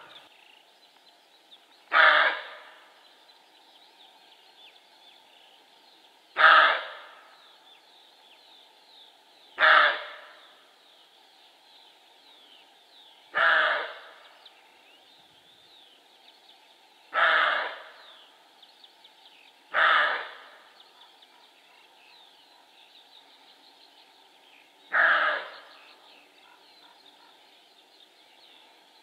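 Male roe deer (Capreolus capreolus) barking: seven short barks a few seconds apart, each starting sharply and dying away quickly.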